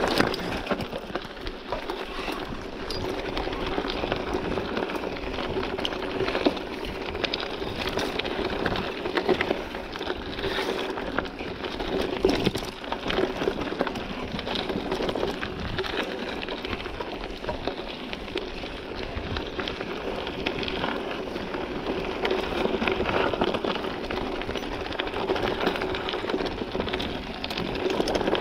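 Mountain bike riding over a rough dirt trail: a steady rushing noise of tyres on the ground, with frequent rattles and knocks from the bike throughout.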